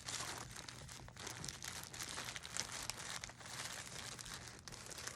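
Packaging bag crinkling and rustling with brief crackles as a mail-order package is handled and opened by hand.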